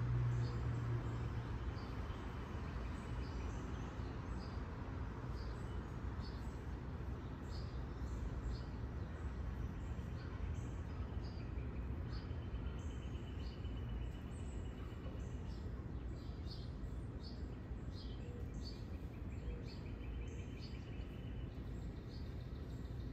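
Small birds chirping over and over, with a few short trills, above a steady low rumble of background noise.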